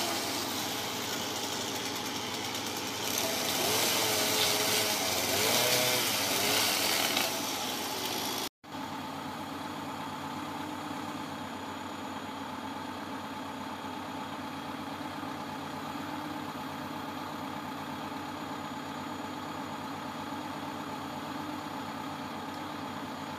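Mobile crane truck's diesel engine running at a steady speed while it holds a wall panel, with a brief break about eight and a half seconds in. It is more uneven in the first part, then settles into an even hum.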